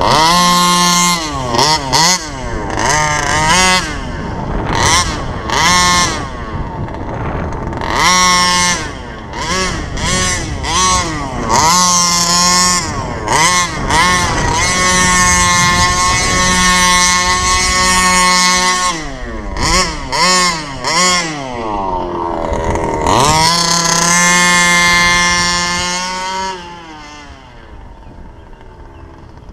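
SCZ 29cc reed-valve two-stroke engine of an HPI Baja RC car revving up and down over and over as the throttle is opened and released, with long stretches held at high revs. It drops away sharply near the end as the car runs far off.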